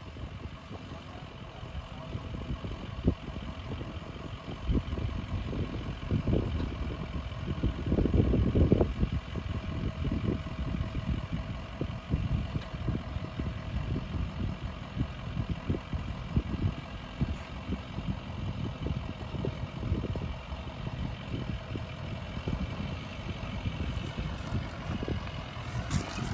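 Ford F-250 Power Stroke diesel pickup crawling over a rough off-road trail. The engine runs steadily under irregular knocks and thumps from the tyres and chassis over rocks, loudest about eight seconds in.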